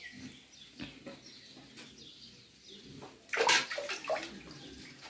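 Water splashing and trickling in a metal bucket as a wild mushroom is rubbed clean by hand, with a louder burst of splashing about three seconds in.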